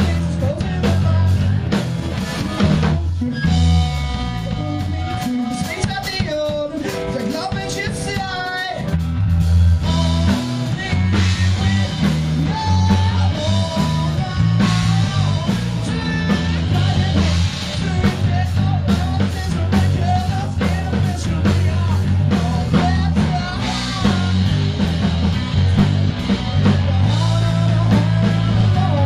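A rock band playing live: drum kit, electric guitar and a singing voice. About three seconds in the heavy low end drops away for a thinner passage, and the full band comes back in about ten seconds in.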